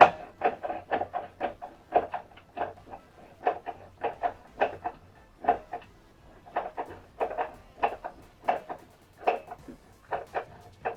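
Short, irregular clicks and knocks, a few a second, of small hardware being worked while the fermenter handles' fasteners are tightened with a 10 mm tool.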